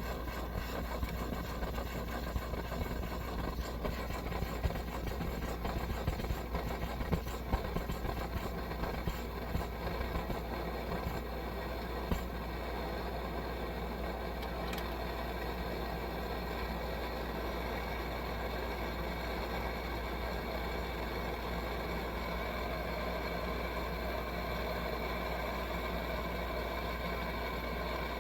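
Burner of a 1966 Coleman 523 two-burner white-gas military stove running with a steady hiss, with scattered pops and crackles over the first dozen seconds. The burner is getting fuel, but the owner suspects its generator may need a little work.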